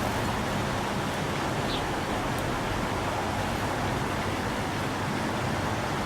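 Steady outdoor background rush with a low hum under it, and one short high bird chirp nearly two seconds in.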